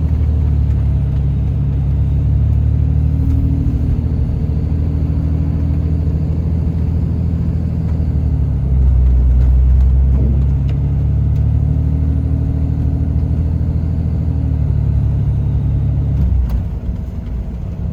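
Cummins turbodiesel pickup engine running under load while towing a trailer, heard from inside the cab with steady road rumble. About nine seconds in the engine note drops lower and gets louder, and a faint high whistle rises and falls above it.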